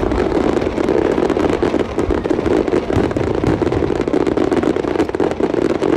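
Aerial fireworks crackling densely, with many rapid small pops overlapping throughout, over a steady background din.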